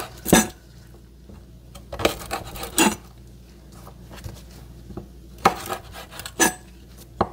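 Kitchen knife cutting the ends off garlic cloves on a wooden cutting board: several sharp knocks of the blade against the board, irregularly spaced, a few of them close together about two seconds in.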